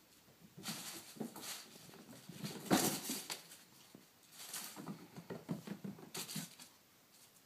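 Kittens' paws scampering and skidding on a wooden parquet floor: quick, irregular pattering and light thumps, loudest about three seconds in.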